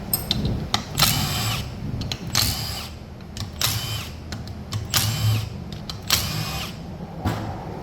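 A power tool, an impact wrench, run in five short bursts about a second apart, each with a brief whine as it spins bolts loose.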